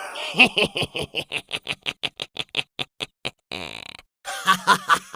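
A man's sinister, evil laugh: a quick run of "ha-ha-ha" pulses, about seven or eight a second, falling in pitch, then a few louder bursts of laughter near the end.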